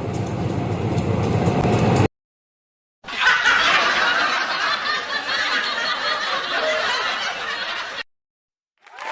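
A train rumbling past, cut off abruptly about two seconds in. After a second of silence, a different, noisy hiss-like sound runs for about five seconds, then stops dead.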